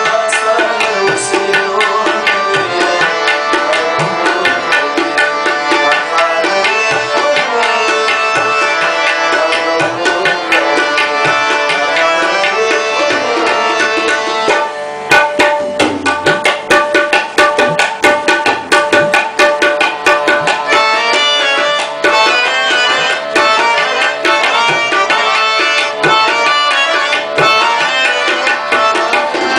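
Tabla and harmonium playing together: the harmonium holds a sustained melody while the tabla keeps a dense rhythm. About halfway through, the tabla breaks into a louder passage of sharp, rapid strokes.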